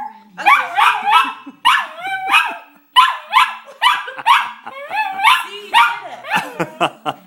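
Small poodle 'singing' along: a run of high, yowling howl-barks, each note bending in pitch, repeating about twice a second. Near the end they turn into quicker, shorter yips.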